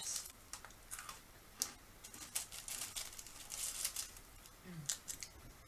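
Plastic biscuit-packet wrapper being picked and torn open by hand, crinkling in short, irregular rustles.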